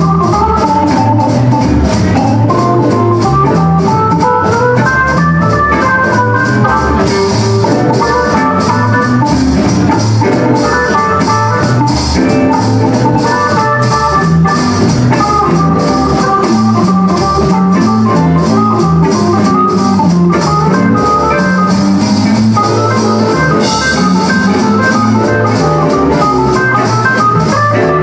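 Blues band playing an instrumental passage, with a Hammond-style organ carrying the lead line over drums and a bass line. The cymbals get brighter about seven seconds in and again near the end.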